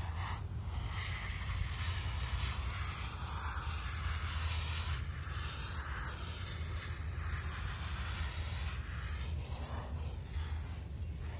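Hand-pump garden sprayer spraying liquid from its wand nozzle onto a small headstone: a steady hiss that eases off near the end, over a low rumble.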